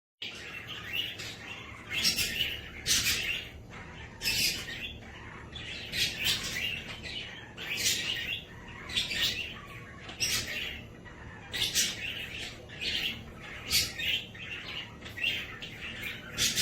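A pet cage bird chirping over and over in short, high calls, roughly one a second.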